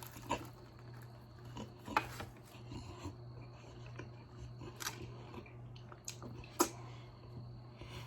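Close-miked eating of a fried egg roll: scattered crunches and mouth clicks while chewing, the loudest about 2 seconds in and again near the end, over a steady low hum.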